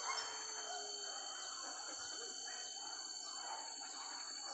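Tropical forest ambience: a steady high-pitched insect drone with a few faint bird chirps.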